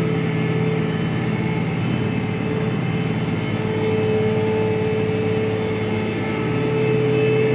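John Deere 8285R tractor running steadily under planting load, with a constant whine over the engine note, heard from inside the cab.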